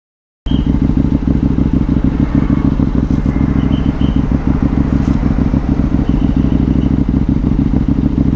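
Sport motorcycle engine idling steadily, an even exhaust note with no revving, starting about half a second in after a brief silence.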